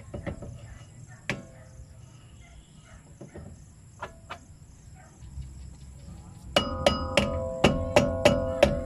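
Steel brake drum being tapped onto the rear hub with a mallet. Light scattered knocks come first as the drum is handled on the hub, then about two-thirds of the way in a quick run of about seven strikes, roughly three a second, each leaving the drum ringing.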